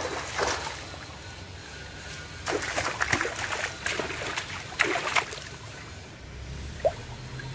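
Water splashing in bursts as large fish thrash while being grabbed by hand in shallow canal water, the busiest splashing about two and a half to five seconds in, over a steady background of flowing water.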